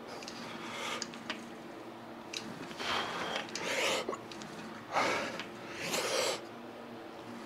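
Forceful breaths in and out during tricep cable pushdown reps: short noisy puffs in two pairs, a little under a second apart within each pair, over a faint steady hum.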